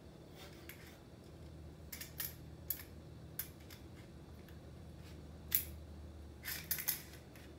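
Small tambourine's metal jingles clinking irregularly as kittens paw and nose at it on the floor, in short jangles with a cluster of several near the end.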